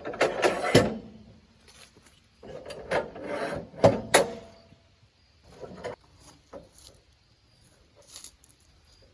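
Clattering knocks of wood and metal being handled, with no engine running. They come in two bursts, one at the start and a longer one from about two and a half to four seconds in, then a few lighter knocks.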